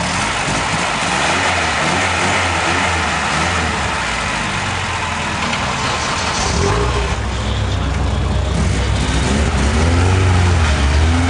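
Classic VAZ (Lada) rally sedan's four-cylinder engine running, then revving harder from about six seconds in, with the pitch rising and falling in repeated climbs and the engine getting loudest near the end as the car pulls away.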